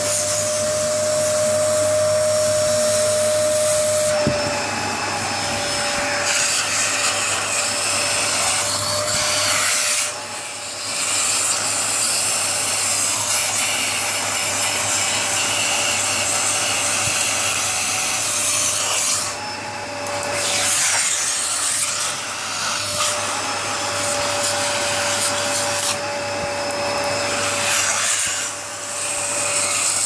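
Vacuum cleaner running: a steady motor whine under rushing suction air. The airflow sound shifts and dips every several seconds as a Staffordshire bull terrier puppy's mouth closes over and lets go of the end of the metal wand.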